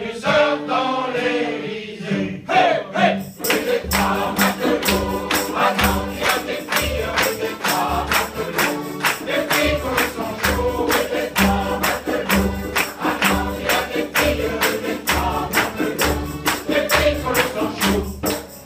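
Amateur mixed choir singing a lively song, with a steady rhythm of sharp percussive strikes joining about three seconds in.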